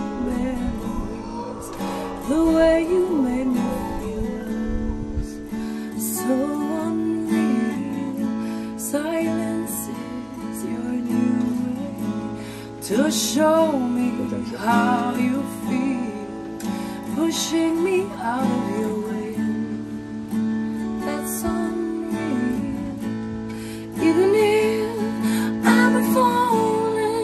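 Acoustic guitar being strummed while a woman sings a melody over it.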